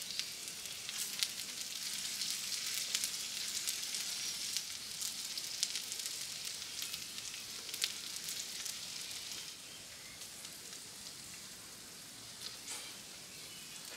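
Meat sizzling as it fries, a steady high hiss dotted with sharp crackles and spits of fat; the sizzle drops noticeably quieter about two-thirds of the way through.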